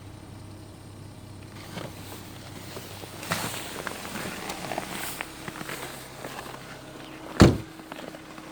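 Skoda Octavia A5 1.6 MPI engine running with a steady hum, while clicks, scrapes and footsteps sound around it, and one loud thump about seven seconds in.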